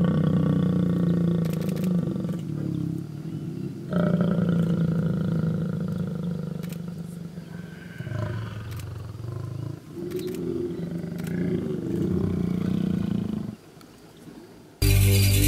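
Lions mating, growling deeply in several rough bouts with short pauses between them. The growling stops shortly before loud music cuts in near the end.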